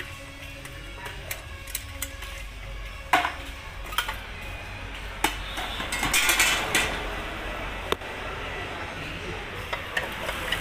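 Sheet-metal clanks, clicks and scraping from a removed Toyota Avanza oil pan as its baffle plate is pried out and a tool is set on the oil strainer. A sharp clank comes about three seconds in and a burst of scraping a few seconds later.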